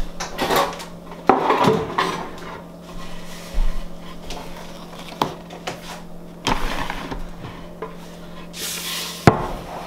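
Kitchen handling noises: scattered knocks and light clatter on a granite countertop, then near the end a short scrape and a sharp knock as a large wooden cutting board is slid and set down on the counter.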